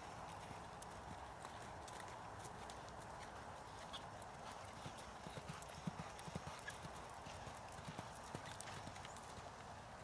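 Hoofbeats of a Paint mare loping around the poles on soft sand footing: irregular, muted thuds over a steady hiss of background noise.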